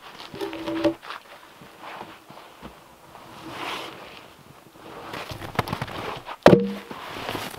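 Boots crunching and shuffling on packed snow while heavy logs are handled. There is a short wooden knock just under a second in, and a loud, ringing wooden thud of a log landing on other logs about six and a half seconds in.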